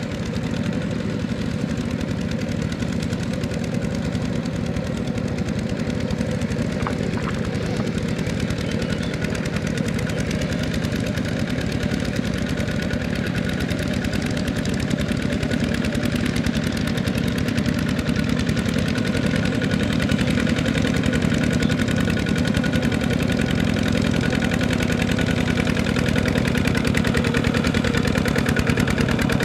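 Single-cylinder diesel engine of a two-wheel walking tractor running steadily under load as its steel cage wheels and plough work through the mud, growing louder near the end as the machine comes closer.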